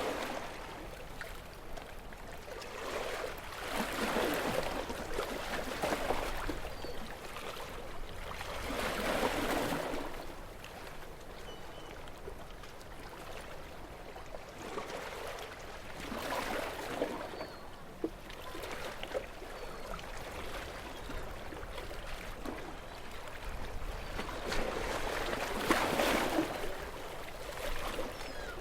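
Gentle sea waves washing in at the shore: a steady wash of water that swells into a soft surge every five to ten seconds and then falls back.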